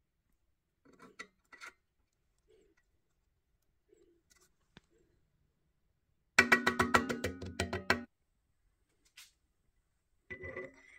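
A rapid run of metal-on-metal strikes, each one ringing, lasting about a second and a half, during work on a Corvette rear trailing arm's wheel-bearing assembly. A shorter burst of metal clinks follows near the end.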